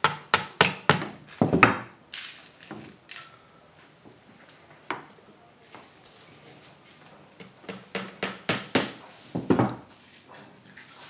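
Hammer tapping push pins into a wooden picture-frame stretcher through the fabric print: a quick run of sharp taps in the first two seconds. Quieter handling follows, then another cluster of knocks on the frame about eight to nine seconds in.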